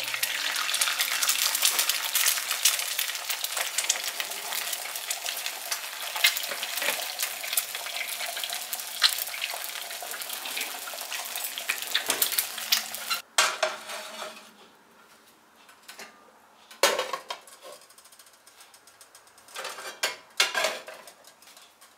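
An egg frying in hot oil in a nonstick frying pan, sizzling and crackling steadily. The sizzle cuts off suddenly a little past halfway. A few separate knocks of pots and pans follow.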